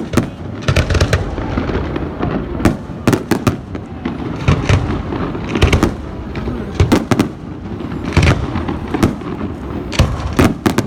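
Fireworks going off: sharp bangs and cracks, often two or three in quick succession, about once a second and irregular, over a continuous low rumble of distant bursts.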